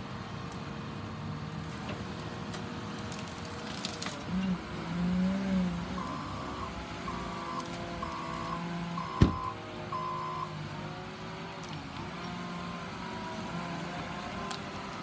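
Caterpillar 926M wheel loader's diesel engine running, revving up briefly about four seconds in as the grapple works a load of gorse. Its reversing alarm beeps five times, about once a second, and a single sharp clank is heard midway through the beeps.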